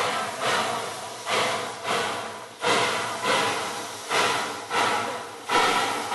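Narrow-gauge steam locomotive chuffing at a slow, steady beat: about eight sharp exhaust beats, each trailing off into a hiss.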